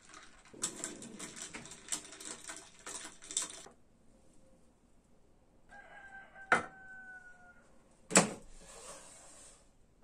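Ice cubes clinking and crackling in a tall glass as coffee is poured over them, then two sharp clinks of the glass and its metal straw. A steady high tone sounds for about two seconds midway.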